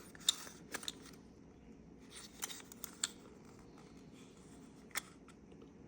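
Light, scattered clicks and taps, about half a dozen, from handling a tin wind-up toy figure.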